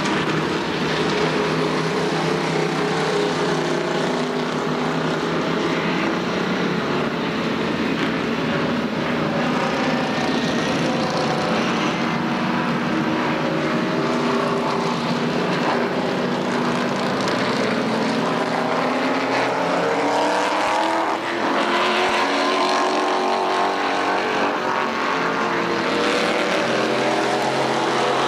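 Late model stock car V8 engines running laps on a paved oval, the engine note rising and falling as the cars go around, with a clear climb in pitch about twenty seconds in.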